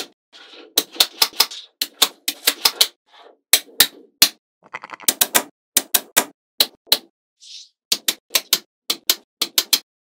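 Small magnetic building blocks clicking as they snap onto one another, in quick irregular runs of sharp clicks with brief pauses. Faint shuffling of blocks being handled can be heard between the clicks.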